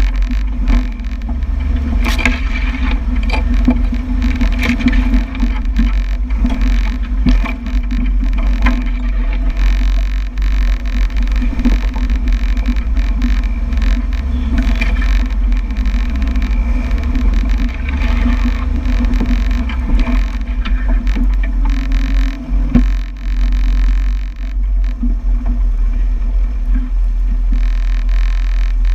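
Land Rover Series 2a engine running steadily under load while driving over a snowy trail, with a constant low drone and frequent short knocks and rattles from the body over bumps.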